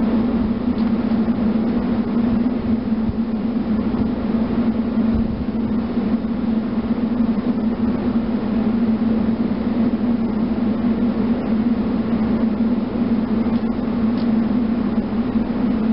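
A steady low mechanical hum over a rough low rumble.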